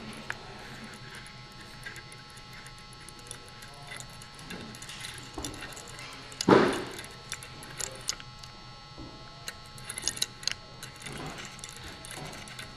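A wooden pinwheel gear train with steel nails for teeth is cranked by hand, and the nail pins click and rattle as they mesh. There is one much louder clunk about six and a half seconds in.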